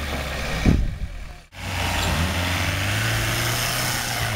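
Homemade small tractors' engines running as they drive. There is a sharp knock a little under a second in, then the sound drops out for a moment. A tractor engine then runs close by, its pitch rising briefly about two seconds in.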